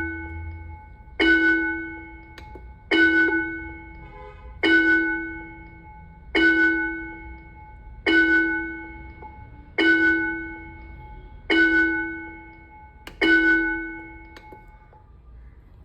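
A recorded school bell played through the small built-in speaker of an automatic school bell controller. A single bell is struck eight times, about every 1.7 seconds, and each strike rings out and fades before the next.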